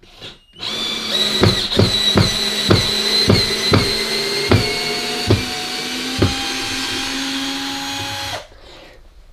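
20-volt cordless drill-driver, running on a replacement trigger switch, backing a long wood screw out of a block of wood: a steady motor whine for about eight seconds with about nine sharp clicks that come further apart as it goes, stopping suddenly near the end.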